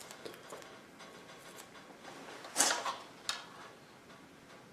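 Light handling sounds of a plastic swingarm guard and adhesive foam tape: faint rustles and small clicks, with one louder short rustle about two and a half seconds in and a sharp click just after.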